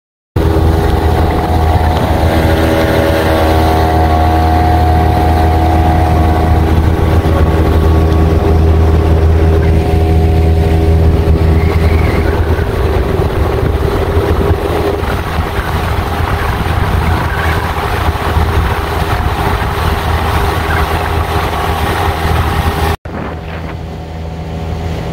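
Outboard motor on a small open boat running steadily at speed, with the rush of the moving boat over it. After a cut about 23 seconds in it continues at a lower level.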